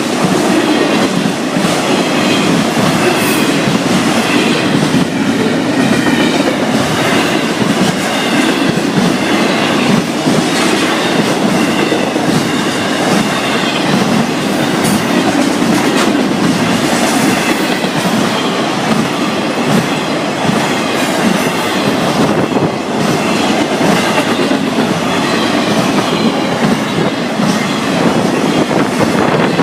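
Florida East Coast Railway freight train passing close by, its cars' wheels clattering steadily over the rails, with a faint high wheel squeal now and then.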